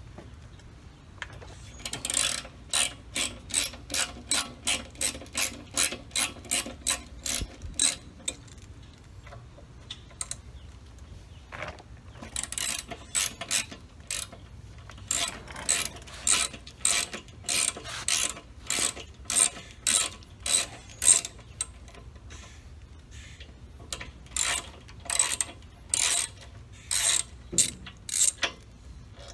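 Ratchet wrench backing out the front fender's Allen mounting bolts, its pawl clicking in short strokes about twice a second. The strokes come in three runs with brief pauses between.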